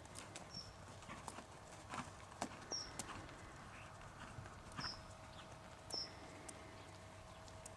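Horse's hooves walking on a sand arena surface, faint irregular clip-clop footfalls.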